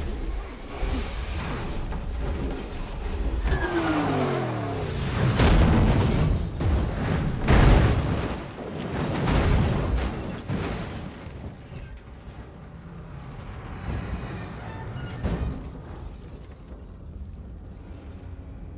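Film car-crash sound effects over the score: a falling pitched sweep about four seconds in, then a run of heavy crashing impacts as a car rolls over onto its roof, dying down to a low rumble and rain near the end.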